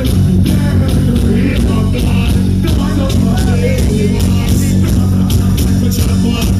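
Loud music played through a large outdoor PA sound system, with heavy bass, a steady beat and a voice over it.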